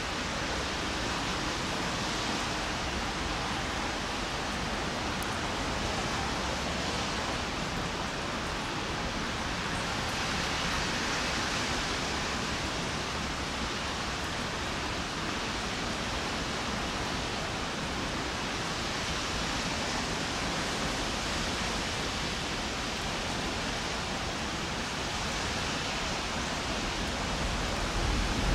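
Steady hiss of light rain falling. It grows louder in the last second or two as an approaching train draws near.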